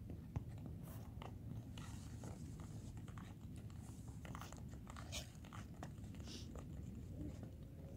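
Low rumble of wind on the microphone with many scattered crunchy clicks and crackles.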